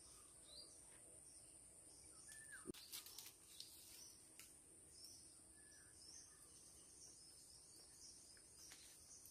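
Near silence: faint outdoor ambience with short, scattered bird chirps over a steady high-pitched hum, and a few soft clicks about three seconds in.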